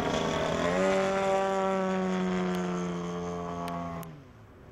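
ZDZ-210 two-stroke petrol engine and propeller of a 47% scale DR-109 model aerobatic plane in flight, rising in pitch about half a second in and then holding a steady high note at high throttle. The sound falls away suddenly about a second before the end.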